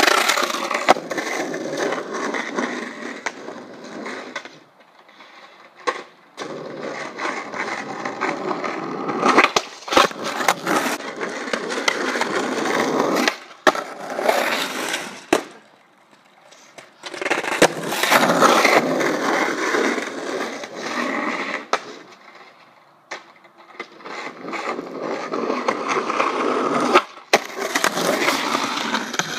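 Skateboard wheels rolling over an asphalt driveway in several passes of a few seconds each, broken by short quieter gaps. Sharp clacks of the board popping and landing stand out during the runs.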